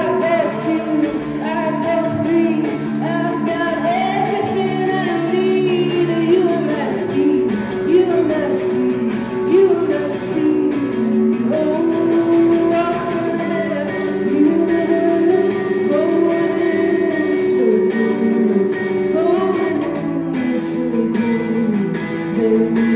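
Live acoustic-style duo: a woman singing a melody into a microphone over a strummed guitar played through a small amplifier.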